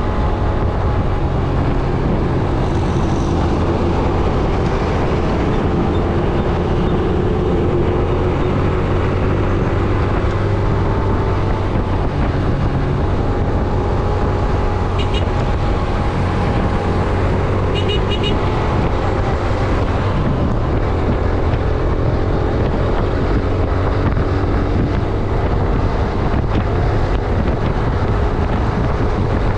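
Yamaha YBR 125G's single-cylinder four-stroke engine running steadily under way, with wind rushing over the microphone and traffic around it. Brief high beeps come twice about halfway through.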